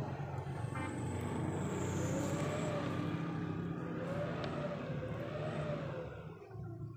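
A motor vehicle engine running in the background, its pitch rising and falling a couple of times over a steady low hum, fading near the end.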